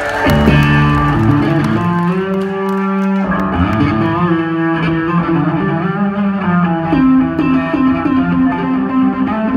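Solo Yamaha electric bass guitar played live, with long held notes rich in overtones and a line of changing pitches. A fresh note is struck just after the start, one note rings on from about two to three seconds in, and a new low note is held from about seven seconds in.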